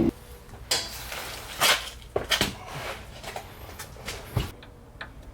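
A series of light, separate knocks and clicks of hard parts being handled, about a dozen over the few seconds, with no steady sound behind them.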